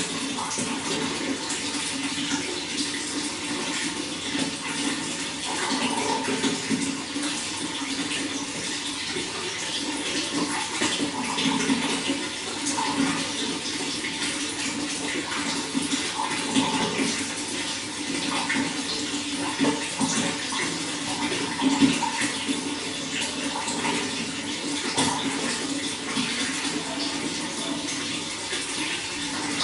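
Running water, splashing steadily and evenly without a break.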